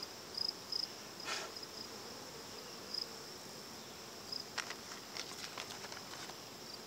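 Crickets chirping in a high, pulsing trill, with a few faint clicks about four and a half to six seconds in.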